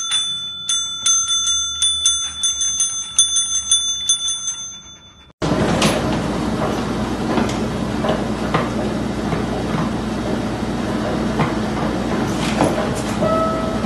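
A dog's paw hitting a counter service bell over and over, about three dings a second, for about five seconds. Then a steady rustling noise with scattered clicks as a dog rummages head-first in a kitchen trash bin.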